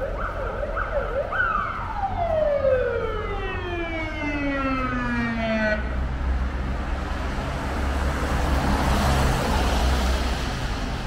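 Emergency-vehicle siren in a fast yelp, about two sweeps a second, then one long tone that falls from high to low over about four seconds and stops. Street traffic noise with a low engine rumble follows.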